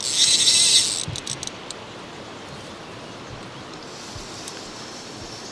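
Fly reel's drag buzzing as a hooked rainbow trout pulls line off the spool, a loud rasp lasting just under a second, followed by a few short clicks. Then only a faint steady outdoor background.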